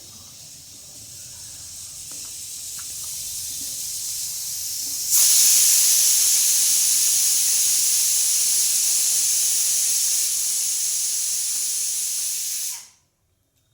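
A loud, steady hiss that grows louder, jumps louder about five seconds in, and then cuts off suddenly near the end.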